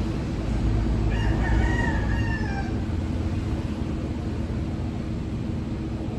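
A rooster crowing once, starting about a second in and lasting under two seconds, over a steady low rumble.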